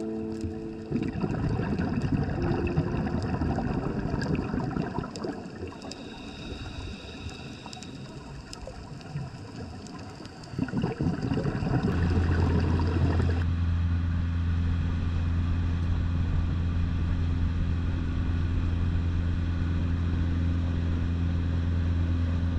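Underwater rushing and crackling, with swells of bubbling noise. From about halfway, a boat's engine runs steadily with a low, even drone.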